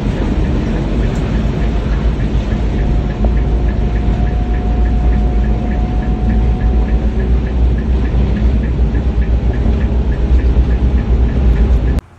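A train running: a loud, steady low rumble with a faint regular clicking about three times a second and a faint steady whine, cut off suddenly near the end.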